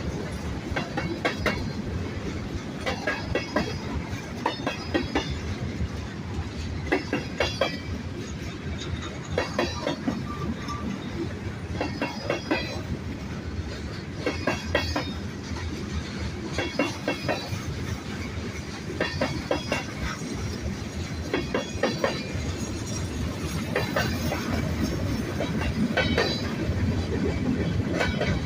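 Freight cars of a mixed freight train rolling past, their wheels clacking over the rail joints in quick pairs every two seconds or so over a steady rumble.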